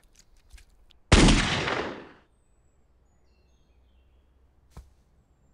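A single pistol gunshot about a second in: a sharp, loud crack whose tail dies away over about a second. A few faint clicks come before it, and a short knock comes near the end.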